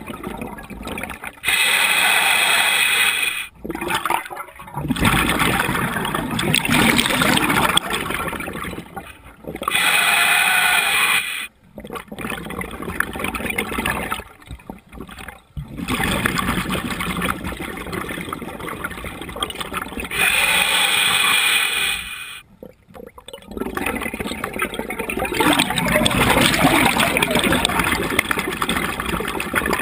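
A scuba diver breathing through a regulator underwater: about three breaths roughly ten seconds apart, each a steady hiss of inhaled air followed by several seconds of bubbling exhalation.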